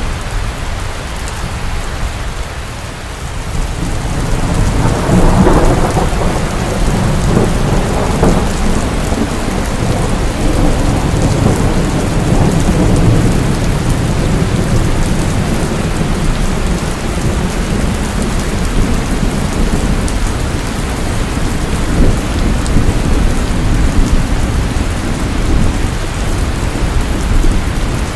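Steady heavy rain falling, with a roll of thunder that swells about four seconds in and rumbles on for several seconds.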